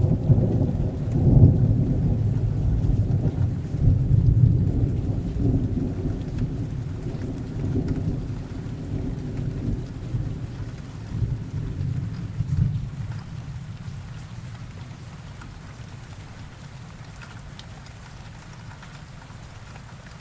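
Rain sound effect: steady rain with a long roll of thunder that rumbles in swells and dies away about two-thirds of the way through, leaving only the rain.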